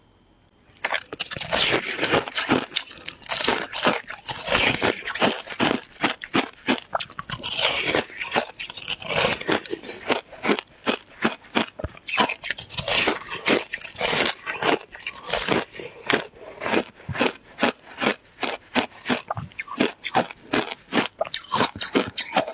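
Close-up crunching and chewing of frozen shaved ice, a rapid run of sharp crunches, several a second, starting about a second in.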